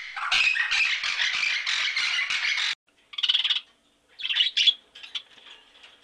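Parrot squawking in a dense run of harsh calls that cuts off abruptly about three seconds in. After a brief silence, budgerigars chirp and warble in short bursts.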